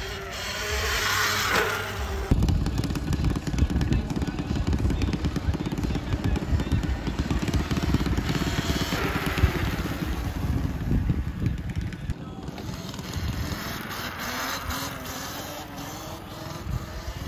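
Talaria Sting electric dirt bike riding a wheelie, its motor whine gliding in pitch for the first two seconds. From about two seconds in, a loud low rumble sits under the bike's sound, which swells twice as the bike passes.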